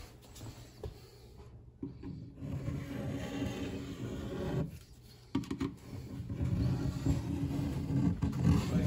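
Excess plumber's putty being scraped from around a stainless steel sink's basket strainer flange with the tip of a tool: a low rubbing scrape in two stretches, with a short pause about five seconds in.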